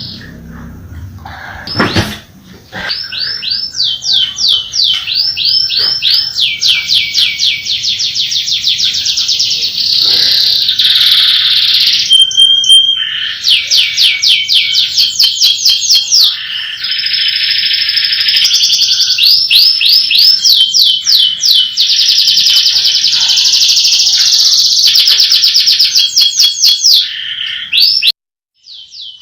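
Domestic canary singing a loud, continuous song of rapid rolling trills, long runs of fast repeated notes one after another. A sharp knock sounds about two seconds in, and the song cuts off suddenly near the end.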